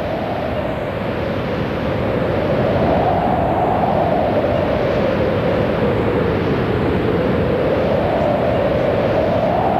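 Loud, steady rushing noise with a band that slowly rises and falls in pitch, like a swept drone.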